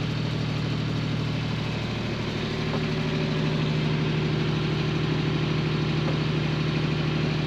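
Wooden river cruiser's inboard engine running steadily under way, a constant low drone that grows a little stronger about two and a half seconds in.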